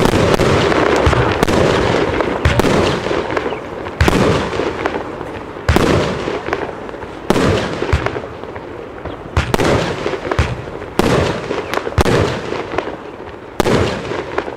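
Argento Opal consumer firework battery firing shot after shot, a sharp bang about every one and a half seconds as each shell bursts overhead, each trailing off in a noisy rush before the next.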